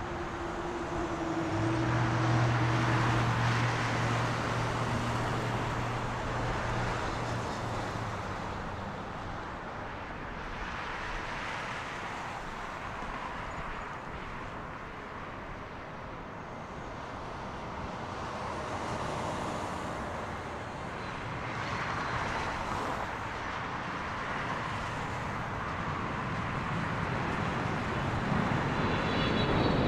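Boeing 777-300ER's GE90 jet engines on final approach, a broad rushing noise that swells and fades, mixed with passing road traffic. Near the end it grows louder and a high engine whine comes in as the jet nears touchdown.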